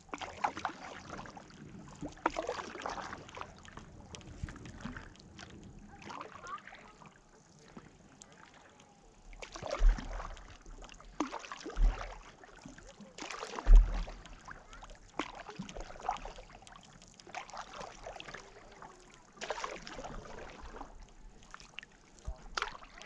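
Paddle strokes from a stand-up paddleboard: the blade dipping and pulling through lake water in irregular swishes and splashes. A few dull knocks stand out about ten, twelve and fourteen seconds in.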